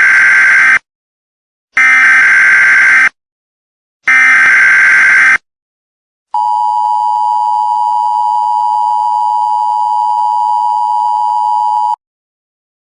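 Emergency Alert System alert opening: three loud bursts of screeching digital header data about a second apart, the first already under way, then the steady two-tone attention signal for about five and a half seconds, which cuts off abruptly.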